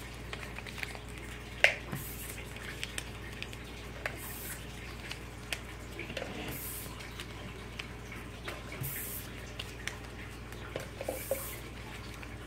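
Small paper slips being folded by hand: faint rustling and creasing, with a short crisp crinkle about every two seconds and light ticks in between.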